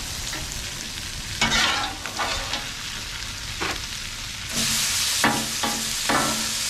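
Shrimp frying and sizzling on the steel top of a 22-inch Blackstone Adventure Ready griddle, with a metal spatula scraping across the plate as they are flipped. The sizzle grows louder and brighter a little past halfway.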